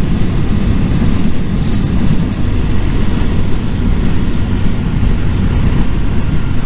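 Yamaha MT motorcycle engine running steadily while riding at road speed, mixed with wind rushing over the microphone.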